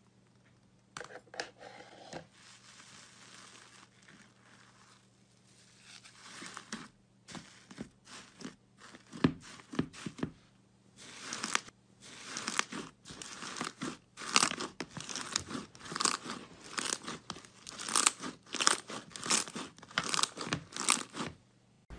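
Airy slime in a plastic tub being poked and squeezed by hand, crackling and popping as trapped air breaks. The crackles are sparse at first and grow louder and denser from about halfway through.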